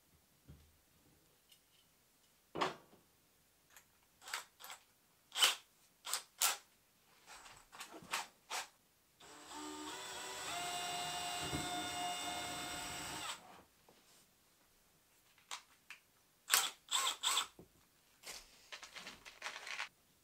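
A power drill runs for about four seconds in the middle, its whine stepping up in pitch as it speeds up. Sharp clicks and knocks from handling the tools and wire basket come before and after it, in a cluster near the end.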